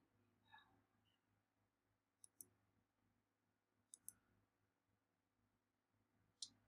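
Faint computer mouse clicks in near silence: a quick pair a little over two seconds in, another pair about four seconds in, and a single click near the end.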